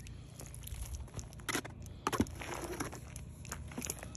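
Footsteps on stony dirt and dry grass: irregular scuffs with two louder ones about one and a half and two seconds in, over a low steady rumble.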